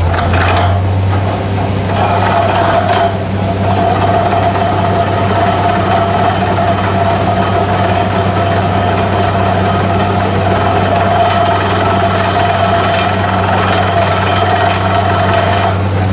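Truck-mounted borewell drilling rig running steadily: a deep, even engine hum with a steady higher whine and a rushing noise over it. The whine comes in about a second in and stops just before the end.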